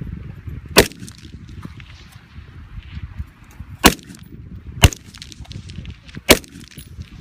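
Four single rifle shots from a Heckler & Koch MR556A1 semi-automatic rifle, fired at uneven intervals, the middle two about a second apart, over a steady low rumble.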